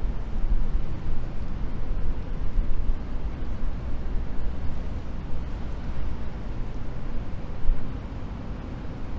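Low, unsteady outdoor rumble, heaviest in the deep bass, with no distinct event standing out.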